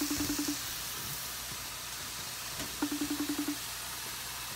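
Pork cutlets sizzling in a frying pan, a steady hiss. A short, low, rapid stuttering buzz, under a second long, sounds at the start and again just under three seconds in.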